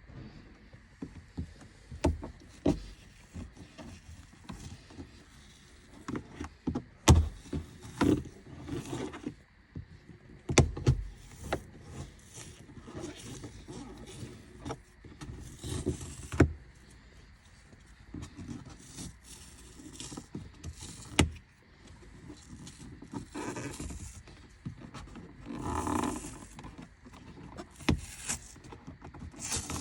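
Handling noises from working on a car's interior: irregular clicks, knocks and taps of hard plastic parts and tools, with rustling and scraping between them.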